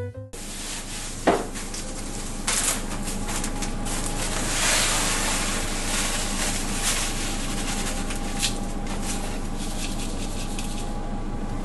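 Plastic zip-top bag rustling and crinkling as it is handled and opened, then crushed pretzel pieces poured from it into a measuring cup, with many small crackles and ticks. A sharp click about a second in.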